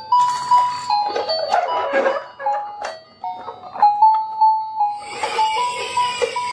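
Battery-powered toy garbage truck's electronic sound module playing a simple beeping tune, one note at a time, with two stretches of noisy sound effects mixed in.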